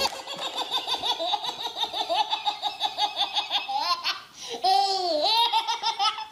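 Baby belly-laughing: a long, rapid run of laughs, a catch of breath about four seconds in, then more laughter.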